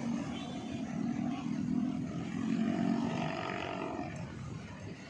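Motor vehicle engine running, swelling louder about three seconds in and then fading.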